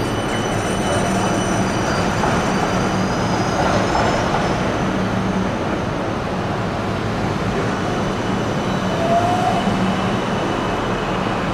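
Melbourne E-class tram running along street track: a steady rumble of steel wheels on rail, with thin high whining tones over the first few seconds and a brief rising tone near the end.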